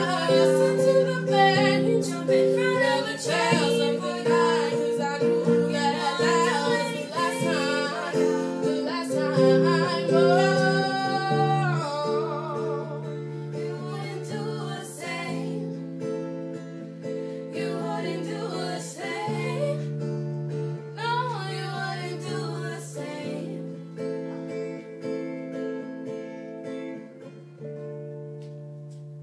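Two women singing with a strummed acoustic guitar. The voices drop out for the last part of the song, and the guitar chords fade down to a final chord left ringing near the end.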